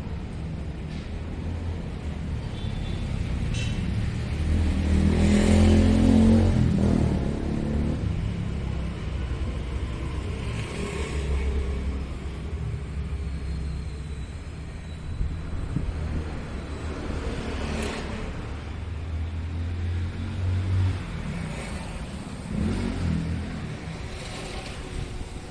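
Low rumble of passing road traffic mixed with wind on the microphone, with the loudest vehicle pass about six seconds in.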